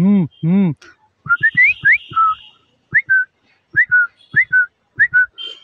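A man whistling a short repeating tune of quick rising notes, with two deep swelling vocal tones at the start and short low mouth clicks keeping a beat between the notes, as a mimicry of a mechanical or electronic sound.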